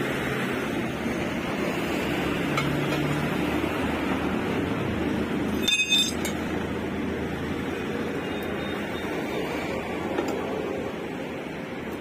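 Steel tyre tools and a motorcycle's alloy wheel being handled while an inner tube is pulled from the tyre: one sharp, short metallic clink near the middle over a steady background noise.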